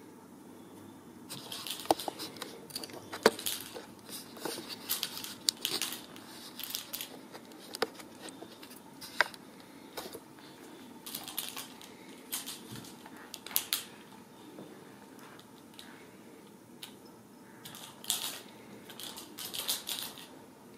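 Ragdoll kittens scrambling and pouncing on a rug as they chase a wand toy: irregular bursts of scratchy rustling from paws and claws, with scattered sharp clicks and taps.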